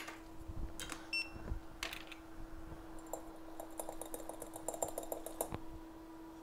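Small clicks and taps of tools and a phone logic board being handled on a microsoldering bench. A brief ping comes early on, and a fast run of light rattling clicks follows from about three seconds in to about five and a half. A steady hum runs underneath.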